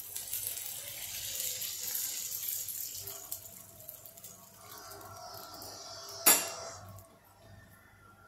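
Water poured from a steel bowl into a pan of hot fried masala paste, splashing and hissing loudest for the first three seconds, then fading. One sharp metal clink about six seconds in.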